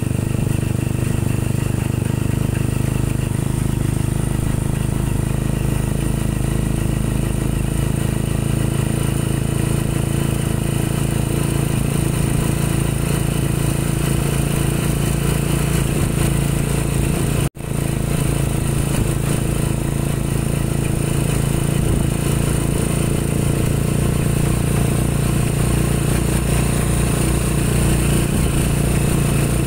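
Engine of a moving road vehicle, heard from on board, running at a steady low drone while cruising. The sound cuts out for an instant about seventeen and a half seconds in.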